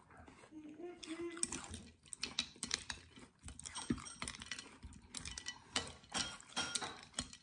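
Metal spoon stirring and scooping through a bowl of iced syrup, ice cubes clinking against the spoon and the bowl in quick irregular clicks, with some crunchy chewing of water chestnuts between.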